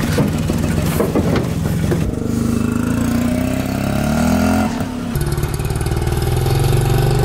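Auto-rickshaw engine clattering, then revving with a rising pitch for a couple of seconds. After an abrupt change about five seconds in, it runs on steadily.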